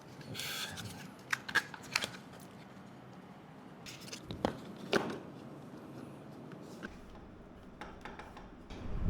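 Plastic side covers of a gaming chair being handled: a brief rustle near the start, then several sharp clicks and taps, a few more about four to five seconds in.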